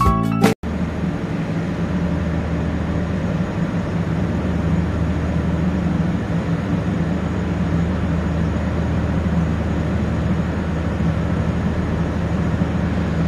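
A steady low mechanical rumble with a low hum and an even hiss, cutting in sharply about half a second in and holding unchanged.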